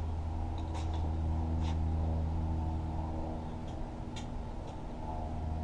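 A few scattered light clicks and taps from hand work on a battery's terminal connections, over a steady low hum.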